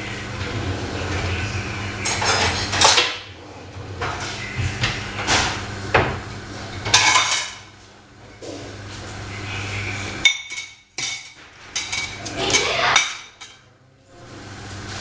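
Metal pots, pans and cutlery clattering and clinking in irregular bursts, over a steady low hum that stops about ten seconds in.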